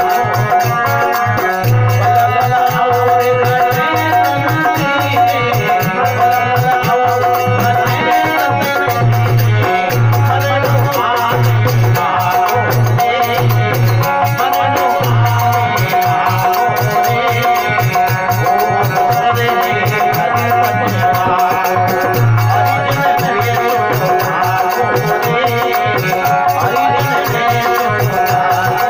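Rajasthani folk bhajan music: a harmonium plays a melody over a held note, with a dholak beating a steady rhythm and small hand percussion rattling along.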